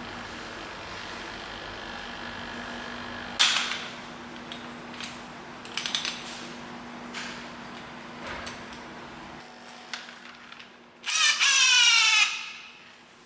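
Workshop tool sounds during suspension work: scattered metallic clicks and clatters, then a power tool runs for about a second near the end, its whine falling as it stops.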